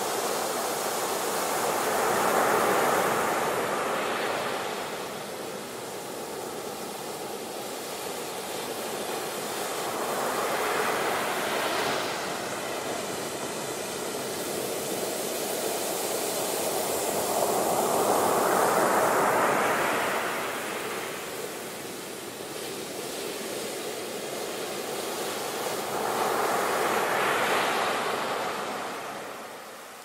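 Ocean surf breaking on a beach: a steady wash of noise that swells and fades four times, about every eight seconds, as each wave breaks and rushes up the shore.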